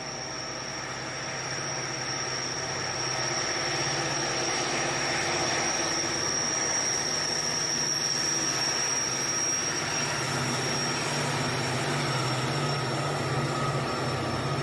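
Two Conrail diesel locomotives rumbling past at low speed, growing louder over the first few seconds, followed by their tank and hopper cars rolling by on the rails. A steady high-pitched whine sits over the train sound.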